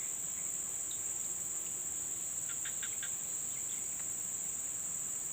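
Steady high-pitched drone of insects, such as crickets, from the swamp, with a few faint short chirps about halfway through.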